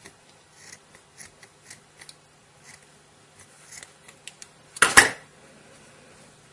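Scissors snipping through cotton wool: a run of small, quiet snips and scrapes, then a brief, much louder burst of noise about five seconds in.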